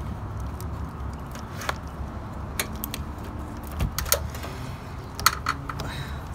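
Plastic clicks, snaps and scrapes as the wiring connector is worked loose and pulled off an old 9006 low-beam headlight bulb, with the sharpest snaps about five seconds in. A steady low rumble runs underneath.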